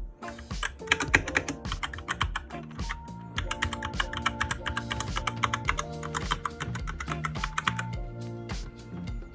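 Fast typing on a Logitech K835 TKL mechanical keyboard with TTC Red linear switches: keystrokes clattering in quick runs, with a short lull about three seconds in, stopping about a second before the end. Background music plays underneath.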